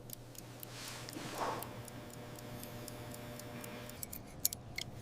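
Faint, even ticking of a mechanical watch movement, over a low steady hum.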